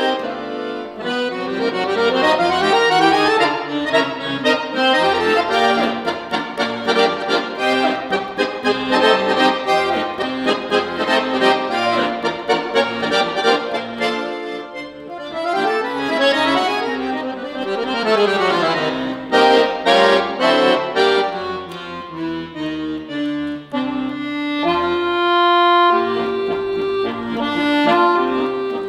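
Piano accordion played solo: fast runs of notes, with a quick sweep down and back up about halfway through, settling into longer held notes near the end.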